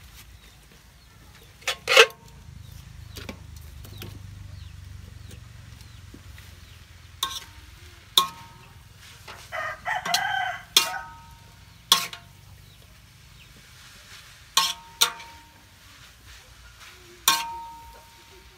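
Metal spatula striking and scraping a steel wok while stir-frying noodles: several sharp clanks, each with a short metallic ring. About ten seconds in, a rooster crows once.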